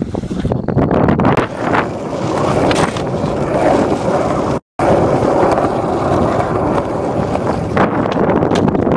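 Skateboard wheels rolling on an asphalt road: a steady rolling noise with a few sharp clicks, cut off by a brief dropout about halfway through.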